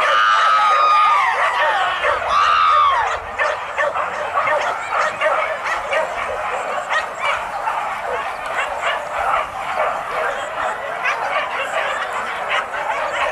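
A pack of boar-hunting dogs yelping and baying together. Several high, drawn-out, wavering cries in the first three seconds give way to a dense chorus of short yips and barks.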